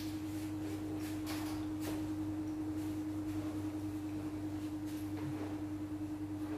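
A steady hum held at a single pitch, with a few faint clicks.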